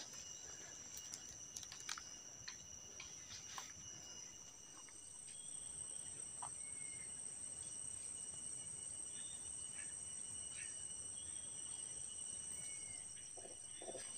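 Forest insects at dusk keep up a steady, high-pitched drone made of several constant notes, and a still higher note joins about four seconds in. A few light clicks and rustles come in the first few seconds, with short faint chirps here and there.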